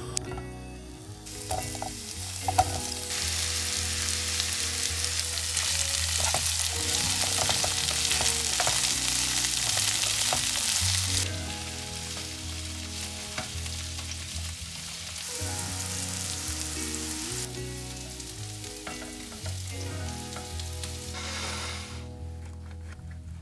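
Diced zucchini sizzling as it fries in oil in a pan, with the scrape and clack of a spatula turning the pieces. The sizzle is loudest for the first ten seconds or so, then drops and swells again a couple of times.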